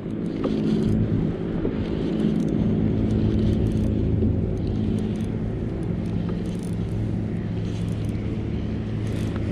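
A motor engine running steadily, a low even hum that grows fuller about two and a half seconds in, over a haze of wind noise.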